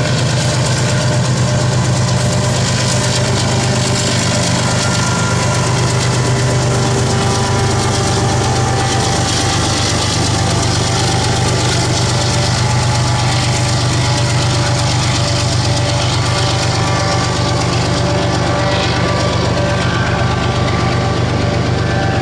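GE ES44AC diesel-electric locomotive's four-stroke GEVO V12 prime mover running under load as it hauls a freight train past, a steady deep engine drone with many overtones, over the rumble of the train's wheels on the rails.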